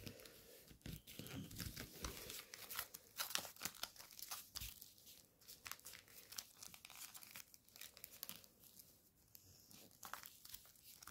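Faint, scattered crinkling and crackling of gold foil origami paper being flattened and unfolded by hand.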